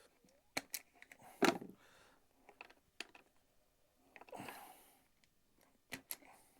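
Scattered clicks and snips of hand tools on electrical cable, with a louder clack about a second and a half in and a short rustle around four seconds in.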